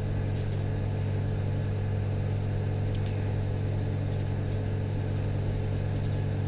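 Microwave oven running, a loud steady hum, while heating a pasta box; a couple of faint ticks about three seconds in.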